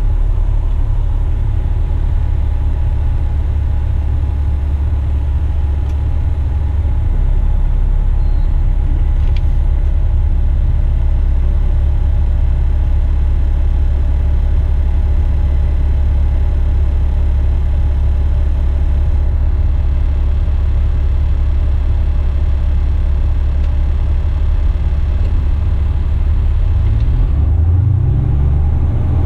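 Western Star truck's diesel engine idling in the cab with a steady low rumble, then revving up near the end as the truck pulls away.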